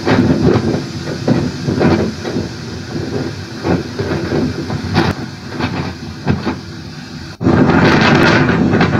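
Hurricane storm noise, gusting wind and rushing water, played through a TV speaker. About seven seconds in it cuts abruptly to a louder, steadier rush.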